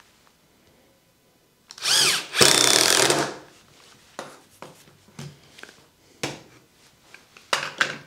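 Cordless drill-driver driving a screw into the wooden jig, one short run of under two seconds about two seconds in, its motor pitch bending as the screw bites. A few light clicks and knocks of handling follow.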